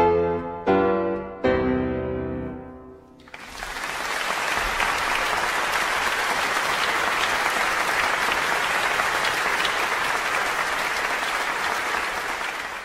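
Three loud closing chords on piano with orchestra, struck in quick succession and left to ring and fade, then the audience breaks into sustained applause about three seconds in.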